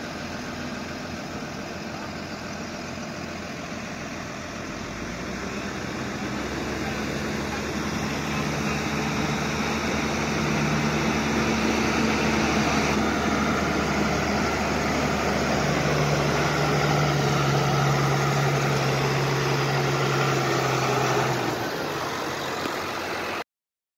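New Holland T7.165 S tractor's diesel engine revving up and running hard under load as it pulls a stuck Scania tipper out of the mud: a steady heavy drone that builds over the first few seconds, holds, then drops back near the end.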